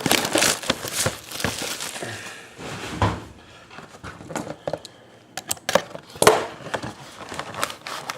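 Shrink-wrap and a cardboard trading-card box being torn open and handled: crinkling for the first couple of seconds, then scattered clicks and knocks, the sharpest about six seconds in.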